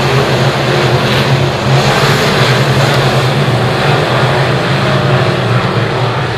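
Several B-Mod dirt-track race cars' V8 engines running together as the cars circle the oval, a loud, steady mass of engine noise.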